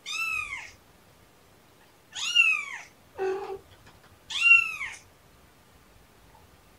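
A young Siamese kitten, out of the nest, meows three times in high, rising-then-falling cries: a kitten's calls for its mother. Between the second and third cry comes a single lower, shorter cat call.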